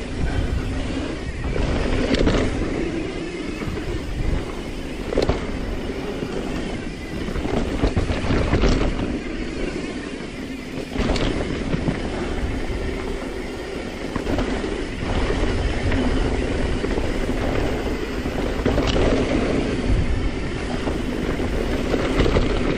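Mountain bike riding fast down a dry dirt trail: a steady rush of tyre noise and wind rumble on the camera mic, broken by several sharp knocks and rattles from the bike as it hits bumps.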